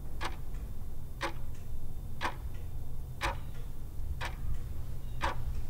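A clock ticking steadily once a second, each sharp tick followed by a fainter one, over a low steady hum.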